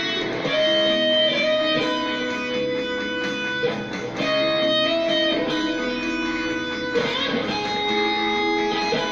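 Electric guitar playing a melodic line of long held notes, moving to a new note about every half second to a second.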